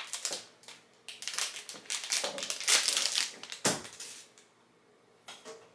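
Plastic toy packaging crinkling and crumpling as it is worked open by hand, an irregular crackle for about four seconds that then stops.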